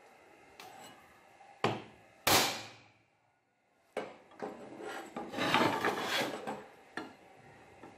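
A hammer striking steel on a metal workbench: several single blows, a few of them ringing briefly. A stretch of rough metal-on-metal scraping comes about halfway through.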